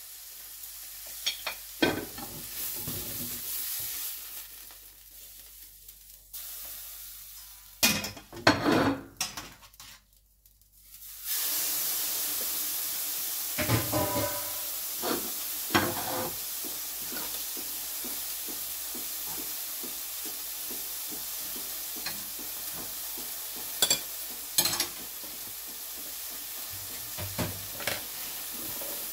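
Meat sizzling in a frying pan: a steady hiss that becomes stronger and even about eleven seconds in, after a brief near-silent gap. Scattered knocks and clinks come from utensils at the pan.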